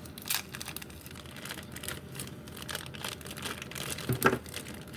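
Plastic packaging rustling and crinkling, with small clicks and taps, as a fashion doll's spare shoes are taken out of their packaging.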